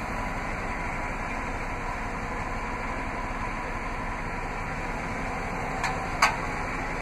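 The truck's Vortec 5.7 L V8 idling, a steady low hum. Two short sharp clicks come about six seconds in.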